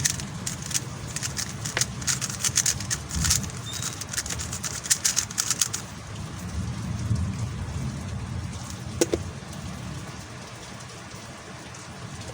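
MoYu Huameng YS3M MagLev 3x3 speed cube being turned rapidly: a fast run of clicks from its layers for about six seconds, then only an odd click, over a low steady background rumble.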